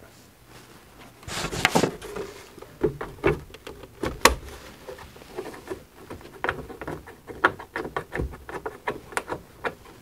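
Irregular clicks and knocks of hands handling a whole-house humidifier's plastic cover as it is seated and its thumb screw and wire connector are refitted, with one sharp click just after four seconds in.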